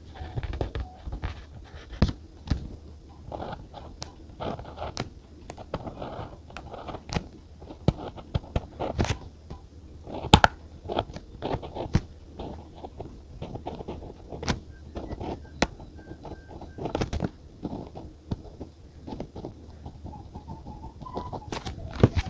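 Stationery being handled on a desk during journaling: irregular sharp taps and clicks mixed with short scratchy paper rustles.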